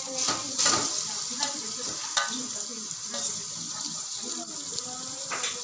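Marinated prawns sizzling as they are tipped from a steel bowl into hot oil in a pan, with a few sharp knocks and scrapes of a spoon against the metal bowl.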